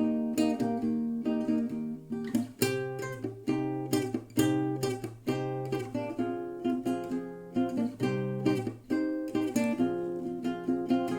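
Acoustic guitar playing, a quick run of plucked notes and strummed chords.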